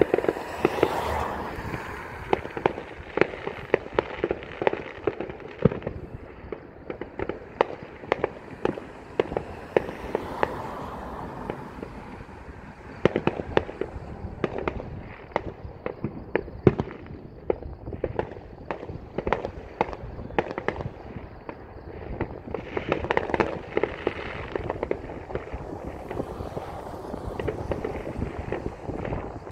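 Many fireworks going off across the neighbourhoods, heard from afar: a near-constant, irregular string of pops and bangs, some in quick runs, with a few louder reports standing out.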